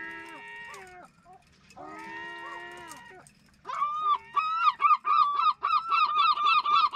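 A gull calling: two drawn-out wailing calls in the first three seconds, then, about three and a half seconds in, a loud fast run of yelping notes, about four or five a second.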